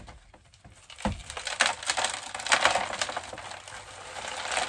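A knock about a second in, then a dense crackle and rattle: soil-and-perlite potting mix and loose stones tumbling out of a flexible plastic nursery pot onto a plastic tray as a plant is knocked out for repotting.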